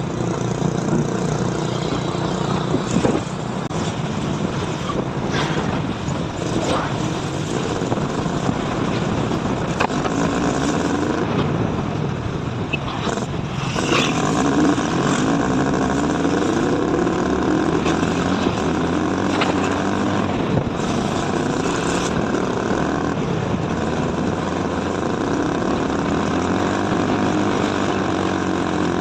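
A vehicle driving on a road: engine and road noise, the engine pitch rising and falling with a few sharp knocks along the way.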